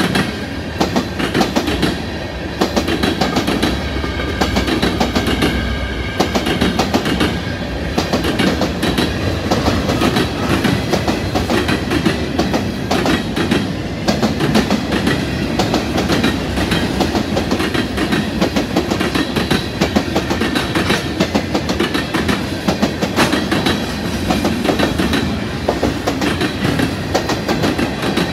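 Freight train cars rolling past at a grade crossing: a continuous rumble of steel wheels on rail, with steady clicking and clatter as the wheels pass over the rail joints.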